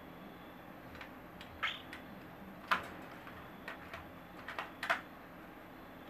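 Scattered light clicks and taps, about ten over four seconds, from baby cockatiels moving and nibbling against their wire cage and perch.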